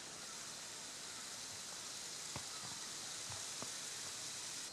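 Faint, steady outdoor ambient hiss, with a few soft ticks a little past the middle.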